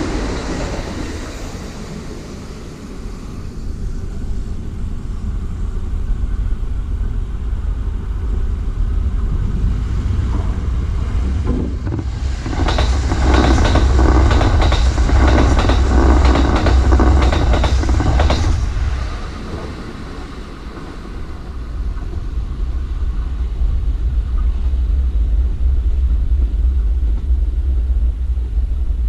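Electric trains on the line: a low rumble as one train pulls away at the start. About halfway through, another runs close past, its wheels clattering rapidly over the rail joints for about six seconds, the loudest part, before fading.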